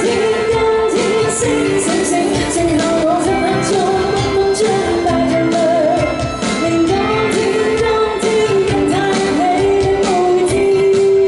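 Female singer singing a Cantonese pop song live into a microphone over an instrumental pop backing.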